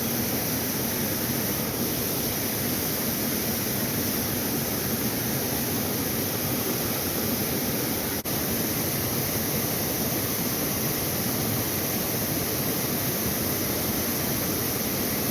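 Steady rushing of a small creek's running water, an even hiss without let-up, broken only by a momentary dropout about eight seconds in.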